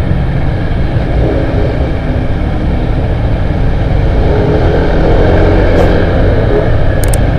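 Yamaha NMAX 155 scooter under way in traffic, its engine note wavering up and down over a heavy low rumble of wind and road.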